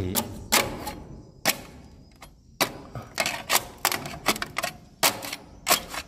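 A rapid, irregular series of sharp clicks, some in quick pairs, loudest around two and a half seconds in and again near five seconds.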